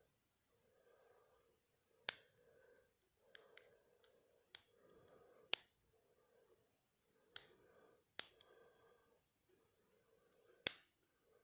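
Lock pick and tension tool working inside a Federal 200A padlock during single-pin picking: sharp metallic clicks, one every second or so, as the pins are worked and set.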